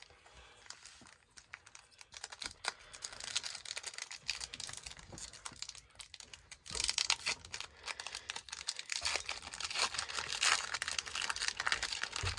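Foil wrapper of a Pokémon card booster pack crinkling and being torn open by hand, with sharp crackles. They grow louder and denser about halfway through as the wrapper is pulled apart and the cards slid out.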